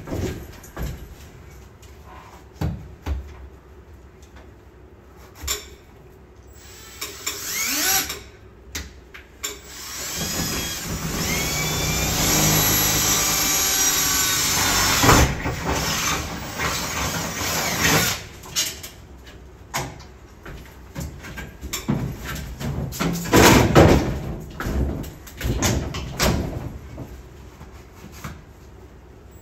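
A small electric motor spins up about ten seconds in, runs steadily for about five seconds, and cuts off sharply. Scattered knocks and clatter of hand work run around it, loudest about two thirds of the way in.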